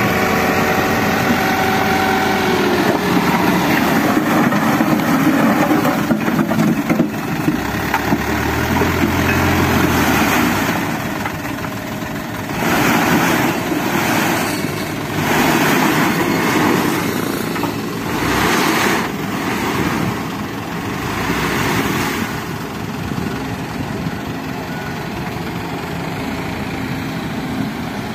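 Engines of a light dump truck and an excavator running while the truck's raised bed tips out a load of soil. The noise swells several times about halfway through.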